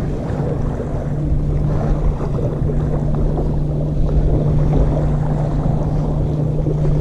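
Steady low rumble of wind buffeting the microphone, with a steady low hum running under it.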